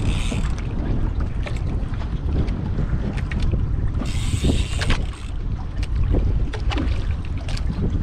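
Wind buffeting the microphone on an outrigger boat at sea, a steady heavy rumble, with water against the hull and scattered short knocks. A hissing rush of wind or spray comes right at the start and again about four seconds in.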